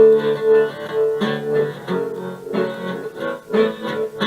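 Instrumental music sample played through a Simulink multi-effect chain of delay, tremolo, flanger, reverb and stereo panning, with a steady pulsing in level about three times a second.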